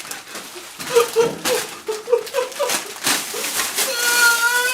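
A high-pitched voice making short rising and falling sounds without clear words, then holding one longer note near the end, with a few sharp clicks among them.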